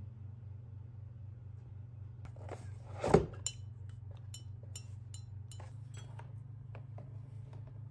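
A glass whisky bottle and its rigid cardboard gift box being handled. There is one solid knock about three seconds in, then a run of light clicks and clinks.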